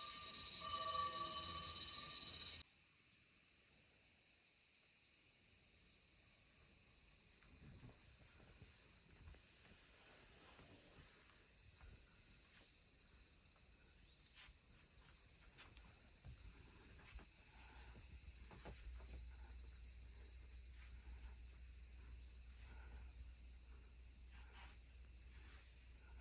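Steady high-pitched insect chorus, like crickets. It drops suddenly to a quieter level about two and a half seconds in, and faint scattered taps come through it after that.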